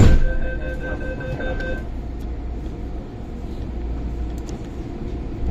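Doors of a CAF train on the MTR Tung Chung Line slamming shut with a loud bang right at the start, the hard door closing this train is known for. A warning tone stops about two seconds in, leaving the low, steady rumble of the train.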